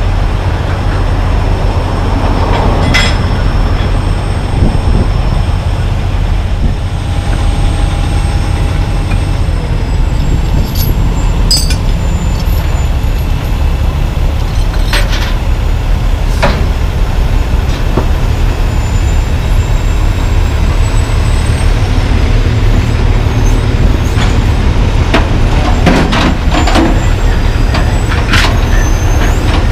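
Heavy diesel truck engine idling with a steady low rumble, with several short air-brake hisses and sharp clicks at intervals.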